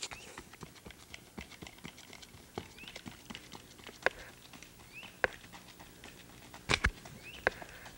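Irregular footsteps on a dirt track, sharp scuffing steps with the loudest pair about seven seconds in. A few short high chirps come between them.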